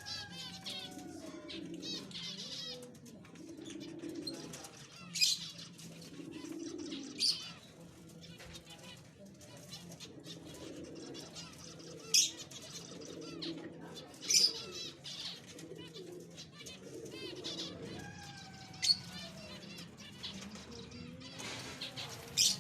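Zebra finches bathing: about six short bursts of wing-fluttering and splashing, with frequent high, nasal chirps between them.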